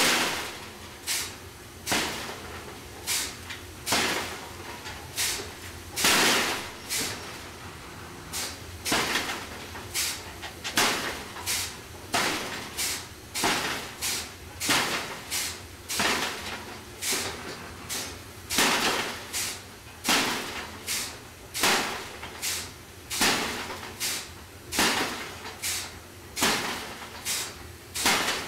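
Power hammer ram striking a glowing hot ingot held in tongs, about one blow a second, during free forging, over the steady low hum of the running machine.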